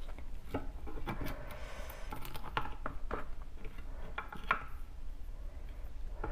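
A metal spoon scraping and clicking against split beef marrow bones as soft marrow is scooped out: a scattering of small, sharp clicks and scrapes.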